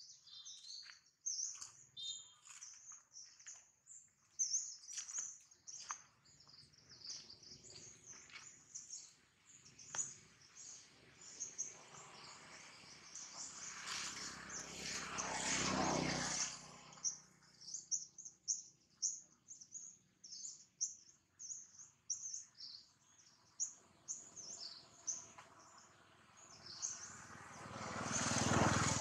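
Small birds chirping continuously, many short high-pitched calls. Twice, a louder rushing noise swells up and fades away: once around the middle and once near the end.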